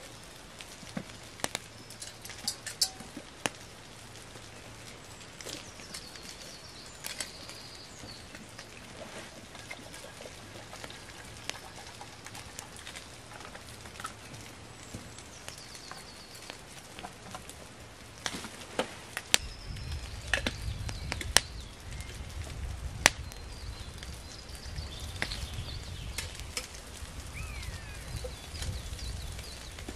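Small wood fire burning in a twig stove, with scattered sharp clicks and knocks, and birds calling now and then in the background. A low rumble comes in about two-thirds of the way through.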